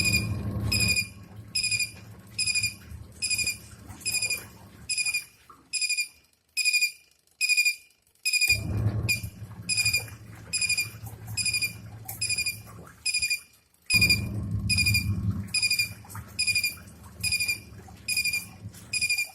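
Godrej semi-automatic washing machine beeping repeatedly, a short high beep about one and a half times a second, to signal that the timed wash cycle has finished. Under the beeps its motor hums low, stopping about a third of the way in and starting again twice.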